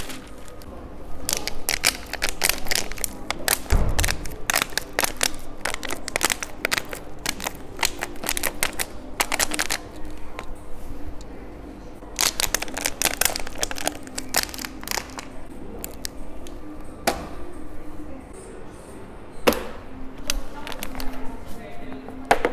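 Loud runs of crinkling and crackling from a newspaper and a thin plastic water bottle being handled, each run lasting a few seconds, with a couple of single sharp cracks later on.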